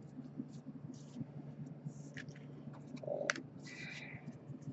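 Baseball trading cards being handled: small clicks and papery slides as cards are flipped through in the hands and set down on the table, with one sharper click about three seconds in.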